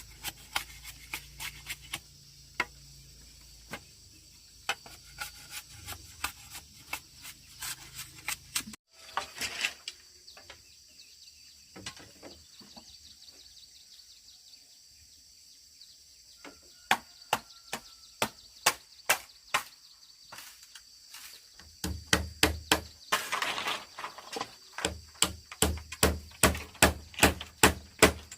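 A run of sharp knocks and taps, several a second, sparse in the middle and then quicker, louder and more regular with a dull thud in each over the last several seconds, with a faint steady high-pitched hum behind.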